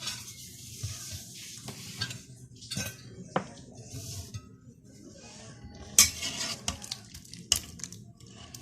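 A metal serving utensil clinking and scraping against a cooking pot and a dish while the stew is dished up, in a string of sharp clinks, the loudest about six seconds in.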